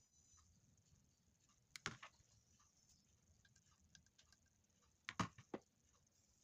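Faint, sharp clicks and taps in two short clusters, about two seconds in and again about five seconds in, over near silence.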